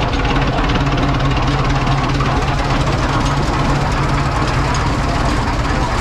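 Large early steel-wheeled tractor's engine running steadily as it drives past, its low firing beat even and unbroken.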